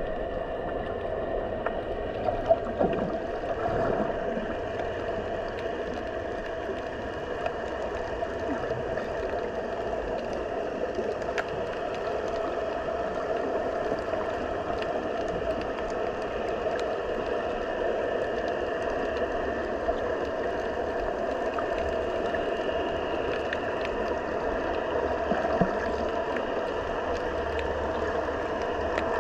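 Underwater ambience picked up by a GoPro Hero 10 in shallow sea water: a steady hum and hiss, with a few faint ticks scattered through.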